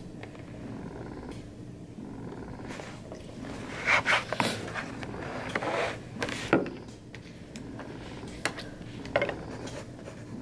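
Rustles and clicks of a phone, sketchbook pages and pen being handled, loudest between about four and seven seconds in, over a steady low hum.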